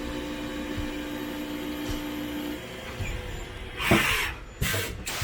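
Machine tool cutting aluminium, running with a steady hum and a held tone that stops a little past halfway, then loud hissing rushes of noise from about four seconds in.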